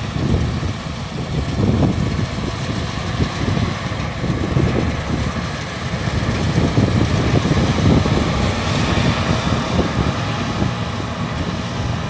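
Changfa CF805N rice combine harvester working in the field: its 95 HP turbocharged engine and threshing machinery run with a steady, loud rumble and a rushing hiss above it.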